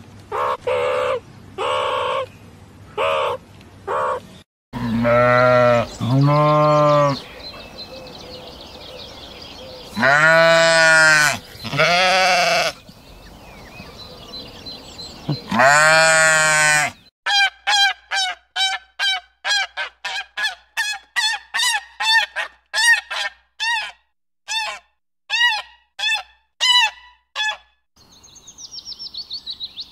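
Sheep bleating: five long, wavering bleats. Before them come short calls repeated about twice a second, from meerkats. After them an unseen animal gives a quick run of short honking calls, about three a second, that stops abruptly.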